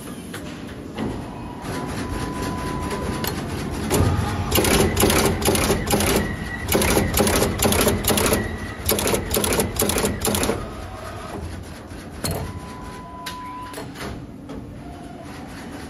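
Automatic through-hole component insertion machine running: its insertion head makes a rapid run of sharp mechanical clacks for about six seconds as it places parts into a circuit board, over a steady machine hum. A thin steady tone sounds for a second or so before the clacking and again after it.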